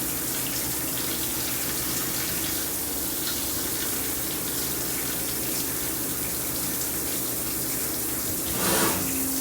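Flood coolant splashing steadily over the work and tooling of a Milltronics SL10 CNC lathe, with a low steady hum from the machine, while a 1/2-13 tap is run to final depth in 304 stainless and backed out. A louder rush comes near the end.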